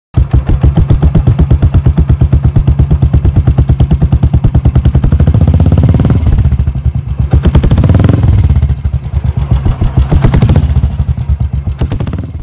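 Royal Enfield Classic 350's single-cylinder engine running through an aftermarket Paramount Wildbore silencer, idling with a fast, even thump. The throttle is opened briefly twice, around the middle and again about two seconds before the end.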